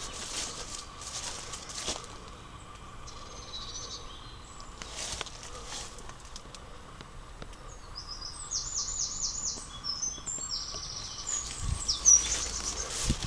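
A songbird singing in short phrases of quick, high repeated notes, most of them in the second half. Footsteps scuff through undergrowth near the start, about five seconds in, and again at the end.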